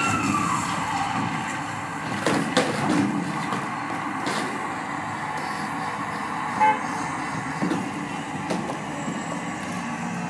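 Urban traffic noise: a steady rumble and hiss of vehicles, with a horn-like tone sliding down and fading in the first second and a few sharp knocks, the loudest about six and a half seconds in.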